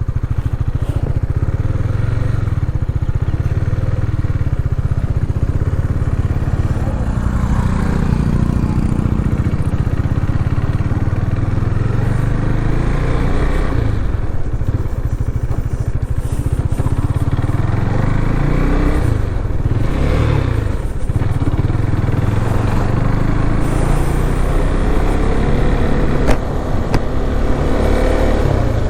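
Motorcycle engine running while riding, its pitch rising and falling with the throttle. There is a single sharp knock near the end.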